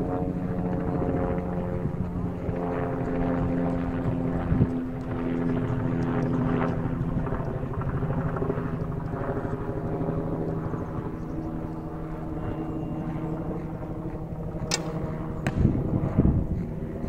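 A steady low engine drone from a passing aircraft, made of several hum tones. Near the end comes a sharp snap of the yumi's bowstring as the arrow is loosed, then a second sharp crack under a second later.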